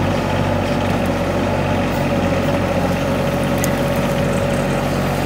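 Diesel engine of a Kymron XH26D 3-ton mini excavator running steadily while the bucket digs, with a steady whine above the engine note.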